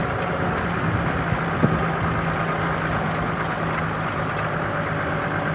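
4x4 vehicle's engine running steadily, with a single sharp knock about a second and a half in.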